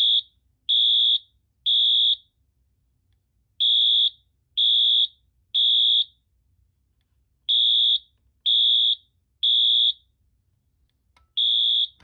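Fire alarm horn-strobe sounding its evacuation signal after the pull station is pulled: loud, high-pitched beeps in groups of three with a pause after each group, the temporal-three pattern. Three full groups play, and a fourth begins near the end.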